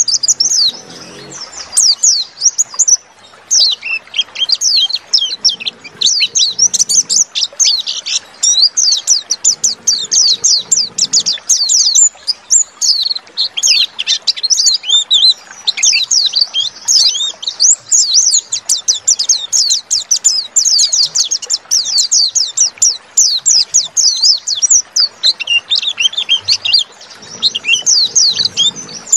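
A white-eye (pleci) singing a long, continuous song of rapid, high, twittering chirps with only brief breaks. This is the long run of song ('ngalas') that such lure audio uses to set caged pleci singing.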